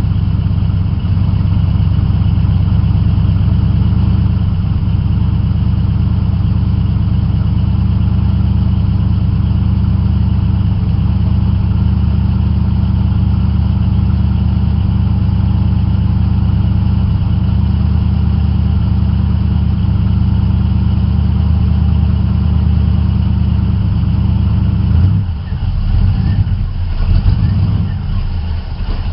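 Jeep engine with a Quadrajet four-barrel carburetor running steadily from a cold start, with no miss after freshly gapped plugs and cleaned ignition wires. About 25 seconds in, the sound turns uneven and its level rises and falls.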